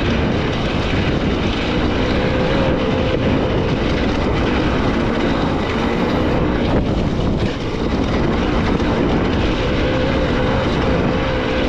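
Beta 300RR two-stroke dirt bike engine running under way, steady and loud, its pitch wavering a little with the throttle. The holed exhaust is plugged with a sawn-off wooden stick.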